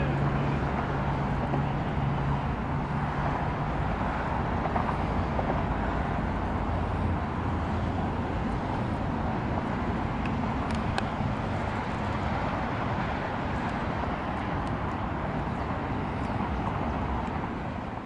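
Steady rumble and hiss of distant road traffic, with a low hum over the first few seconds and a few faint high ticks about eleven seconds in.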